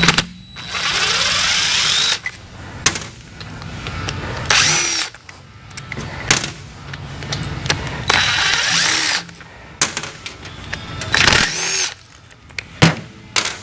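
Power drill backing out bolts in four short runs, its whine rising as it spins up each time, with sharp metal clicks between the runs.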